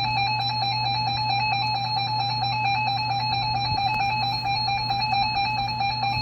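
Emergency Alert System attention signal: a loud, steady two-tone alarm held without a break, with a low hum underneath. It signals that an emergency message, here a tornado warning, is about to follow.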